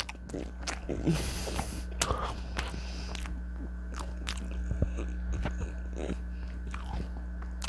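Close-up crunching and chewing of crisp chips in the mouth, a run of irregular crackles with louder crunches about a second and two seconds in, over a steady low hum.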